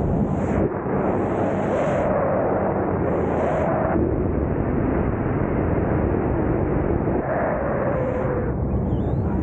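Wind rushing over the microphone on an open ultralight aircraft in flight, with the engine's steady drone underneath.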